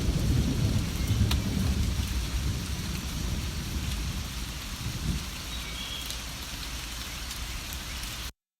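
Steady rain with low thunder rumbling, the rumble dying away over the first few seconds while the rain hiss continues; the sound cuts off abruptly near the end.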